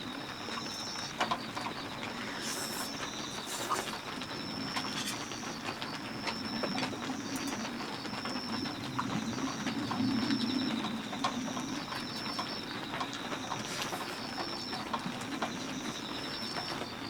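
Heavy rain falling on a polycotton dome tent: a steady hiss with scattered drops ticking on the fabric. Over it, a high chirping repeats about once a second.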